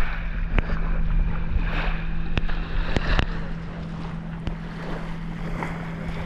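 A steady low motor-like hum with low rumbling, like wind on the microphone, and a few sharp clicks.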